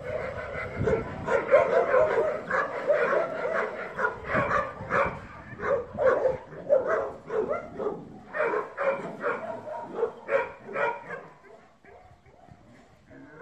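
Dog barking over and over, a few barks a second, tapering off and stopping near the end.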